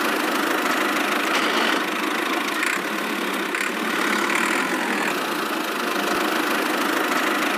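Miniature DIY toy tractor running steadily as it drives across sand, a constant engine-like noise without a clear pitch.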